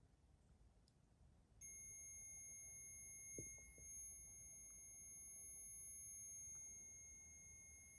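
Electronic alarm of a ghost-hunting trigger device sounding: a steady high-pitched tone that switches on suddenly about one and a half seconds in and holds, which the investigators take as the device being set off. A faint tap is heard a couple of seconds after it starts.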